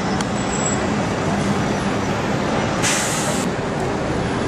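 Steady downtown street traffic noise, with a short hiss about three seconds in.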